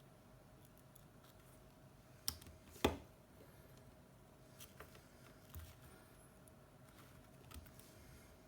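A few light clicks and taps of small repair tools and phone parts being handled, the two loudest a little over two seconds in and just under three seconds in, over a faint steady hum.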